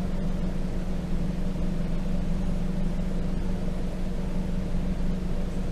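Small car's engine and road noise heard from inside the cabin: a steady drone with a constant low hum.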